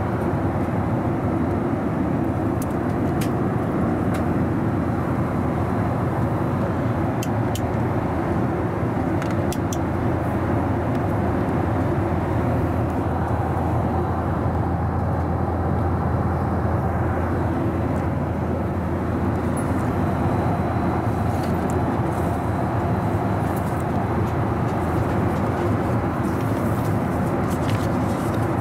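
Steady cabin noise of a Boeing 737-800 in flight: an even rush of airflow and engine noise heard inside the cabin, with a few faint clicks.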